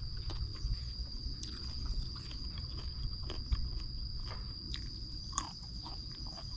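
A person biting and chewing crunchy raw vegetables, with scattered crisp crunches.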